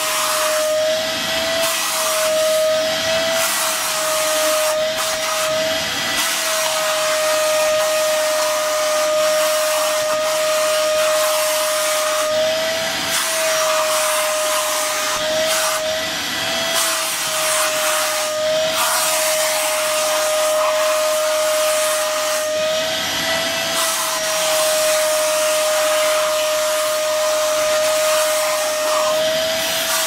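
Vacuum cleaner running steadily while its nozzle is passed over a dog's coat: a continuous suction hiss with a motor whine that rises slightly in pitch for moments every few seconds.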